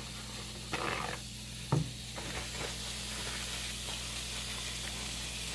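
A sirloin steak sizzling steadily on a hot grill, with a short scraping burst about a second in and a sharp knock soon after.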